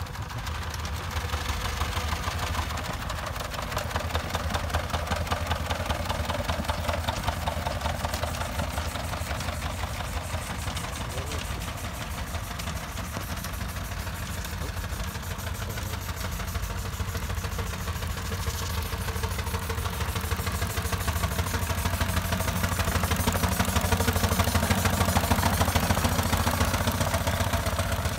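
Miniature steam traction engines running, a steady, fast mechanical beat. It grows louder about three-quarters of the way through as one passes close.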